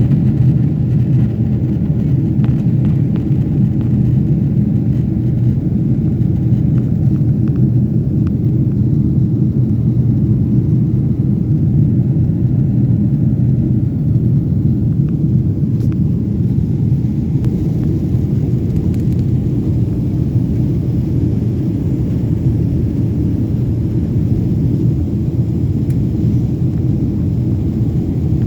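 Steady low rumble of a jet airliner heard from inside the passenger cabin: engine and airflow noise holding an even level throughout.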